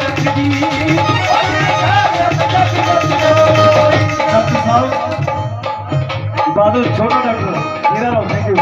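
Live Punjabi folk music without vocals: a dhol drum beats a rhythm under a held melody line. From about halfway through, the drum strokes stand out more sharply.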